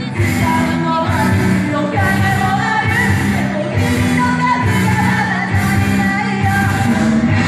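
Japanese idol group singing live: female voices singing a J-pop idol song into microphones over loud backing music with a steady beat.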